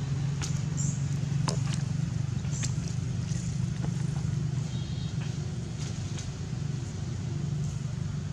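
A steady low mechanical hum, like a motor running, with a few faint clicks over it.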